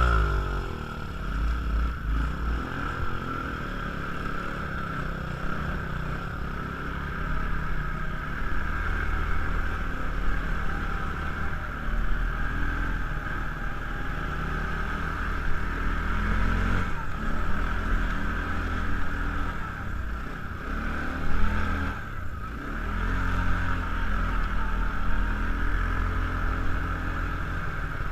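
Kawasaki ATV engine running steadily while riding, its rumble rising and falling with the throttle.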